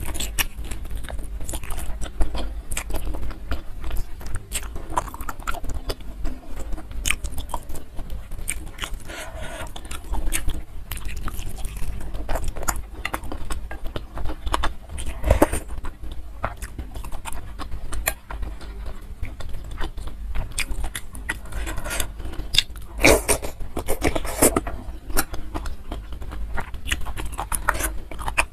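A person biting and chewing food close to the microphone: irregular wet mouth smacks and small crunchy clicks, with a louder run of them a little past the middle.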